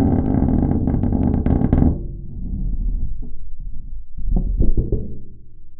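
Old rusted truck's metal body worked by hand and heard only through a LOM GeoFon geophone on the metal. A dense scraping with many clicks lasts about two seconds, followed by a quieter low steady tone and a quick run of knocks near the end.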